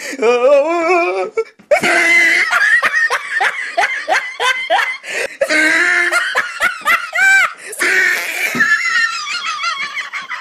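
Loud, hearty laughter: belly laughs and giggles in quick, choppy runs, with a short high-pitched cry about seven seconds in.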